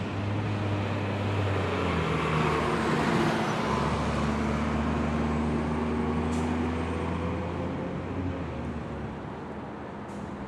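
Road traffic passing on a multi-lane city street: cars and SUVs driving by with engine hum and tyre noise. It is loudest about two to four seconds in and slowly eases after that.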